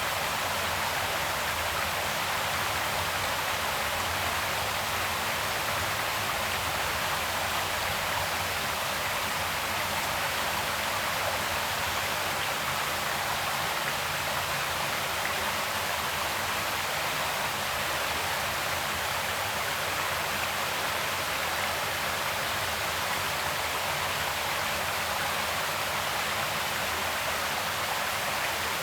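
Creek water flowing and rushing steadily, an even hiss-like wash of water with no breaks.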